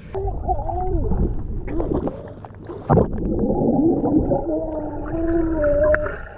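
Child's voice heard underwater as they blow out bubbles: muffled, wavering tones with bubbling. A sharp knock about three seconds in, and a held tone near the end.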